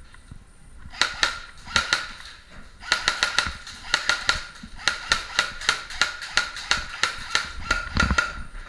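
Electric airsoft guns firing in repeated bursts of rapid shots. Each burst carries a steady whine from the gun's motor and gearbox. There are two short bursts in the first two seconds, then longer strings of fire through most of the rest.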